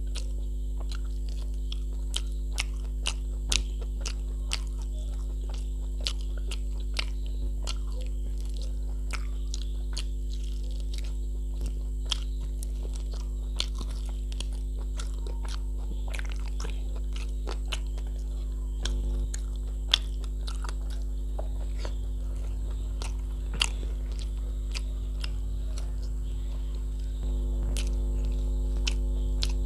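Close-miked eating by hand of mutton curry and rice: mouth chewing and biting, with irregular sharp clicks and crunches. Under it runs a steady low hum.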